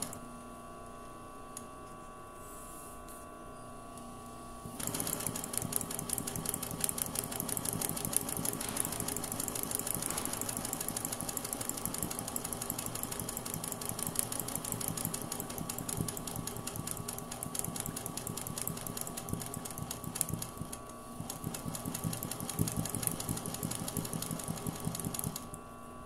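Sewing machine stitching rapidly and steadily in free-motion embroidery, starting about five seconds in, pausing briefly about three-quarters through and stopping just before the end.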